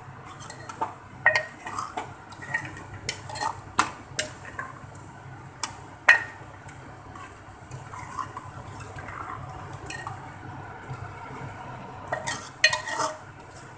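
Metal spoon stirring mutton pieces in a thick masala, scraping and clinking against the sides of a metal pot. The clinks come irregularly: busy in the first few seconds, sparser through the middle, and a quick cluster near the end.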